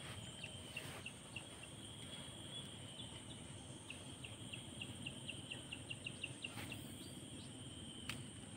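Outdoor ambience: insects droning steadily at a high pitch, with a run of quick high chirps, about five a second, for a couple of seconds past the middle, and a few faint clicks.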